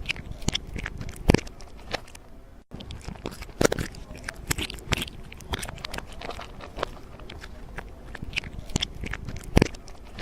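Irregular crunching and crackling, several sharp crunches a second with a few louder ones, broken by a brief dropout about two and a half seconds in.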